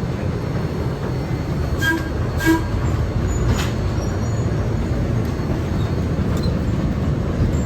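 Steady low rumble of a moving vehicle, with two short pitched dings about two seconds in.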